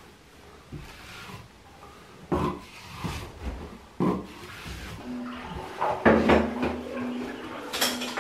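Putty knife scraping filler across a plaster wall in several separate strokes. In the second half a low steady hum joins, and a sharp clack comes near the end.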